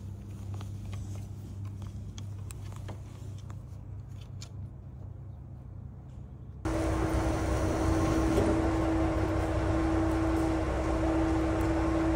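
Steady low mechanical hum like an idling engine. About six and a half seconds in it cuts suddenly to a louder hum with a steady mid-pitched drone.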